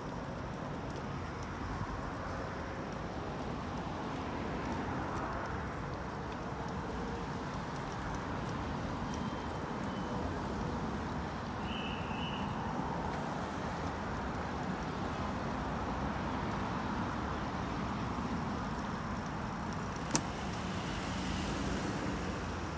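Steady rumbling hiss of riding a bicycle, with the noise of road traffic mixed in. One sharp click comes about twenty seconds in.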